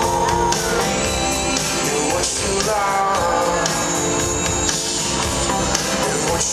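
A band playing rock music with guitar and a singer's voice.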